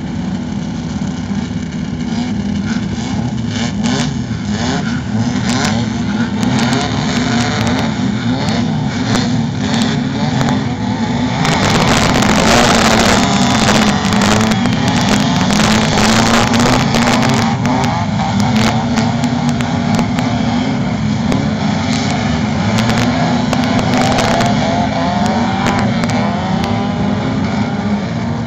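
A pack of off-road racing buggy engines running together and revving, pitches rising and falling over one another, loudest for several seconds starting about twelve seconds in.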